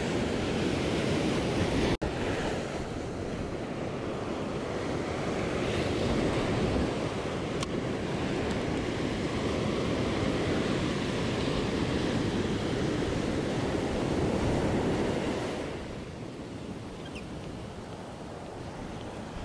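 Ocean surf breaking and washing up a sandy beach, a steady rushing wash, with wind buffeting the microphone. It drops briefly about two seconds in and becomes quieter near the end.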